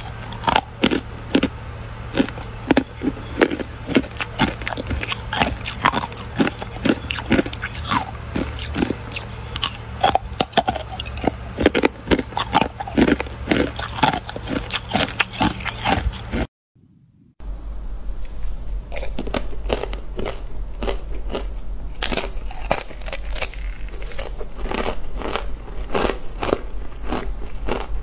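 Ice coated in matcha powder being bitten and crunched, a rapid run of sharp cracks and crunches. The sound drops out for about a second a little past halfway, then the crunching resumes.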